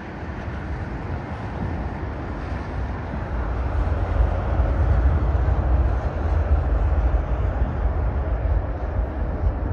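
An aircraft passing by, a rumbling roar that builds to a peak about five seconds in and then begins to fade.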